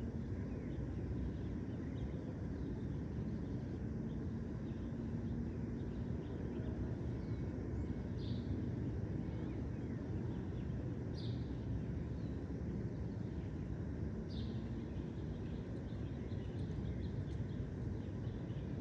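Park ambience: a steady low rumble of distant city traffic under faint twittering of small birds, with three brighter short bird chirps standing out about halfway through and toward the end.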